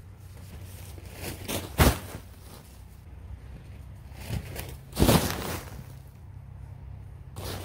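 Paper leaf bags full of dry leaves crinkling and crunching as they are handled and set down: two short loud crunches, about two seconds in and again about five seconds in, with rustling picking up again near the end, over a steady low hum.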